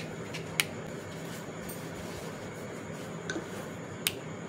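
Two short sharp clicks, one about half a second in and one near the end, over a steady background hum: the magnetic head of a charging cable snapping onto the magnetic pin in a phone's charging port.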